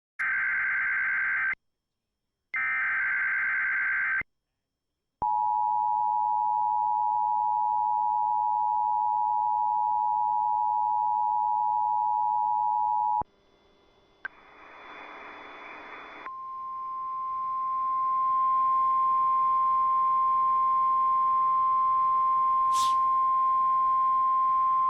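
Emergency Alert System tones. Two bursts of screechy SAME digital header data are followed by the two-tone EAS attention signal, a steady chord held about eight seconds. After a short stretch of hiss, a single-tone NOAA Weather Radio alert tone fades in over a couple of seconds and holds steady.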